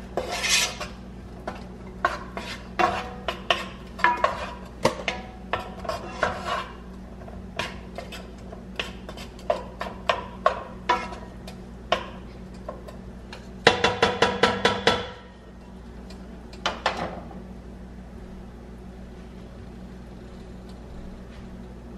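Wooden spoon stirring diced onions in a nonstick frying pan, knocking and scraping against the pan in irregular clicks. A quick flurry of taps comes about two-thirds of the way through, a few more follow, and then the stirring stops, leaving only a low steady hum.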